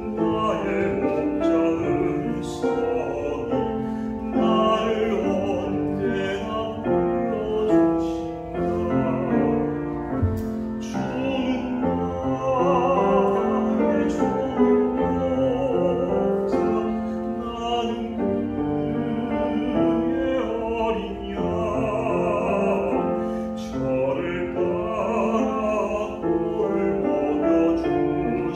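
A man singing a Korean hymn in a trained, operatic voice with vibrato on the held notes, accompanied by a grand piano.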